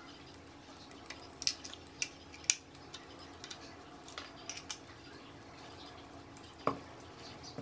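Phillips screwdriver turning out small screws from a plastic coin-slot housing: scattered light clicks and ticks of metal on plastic, with a slightly heavier knock near the end.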